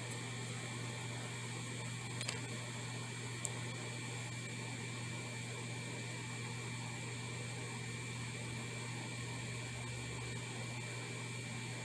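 Steady low electrical hum with a faint high whine and hiss, with two faint light ticks about two and three and a half seconds in. The soldering itself makes no audible sound.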